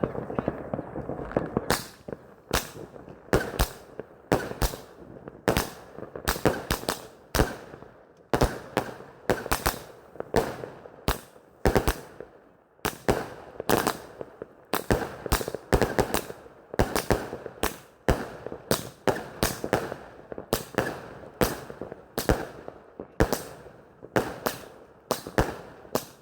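A 100-shot firework battery (cake) firing shot after shot: sharp bangs come a few per second in uneven clusters, starting about two seconds in and keeping on steadily.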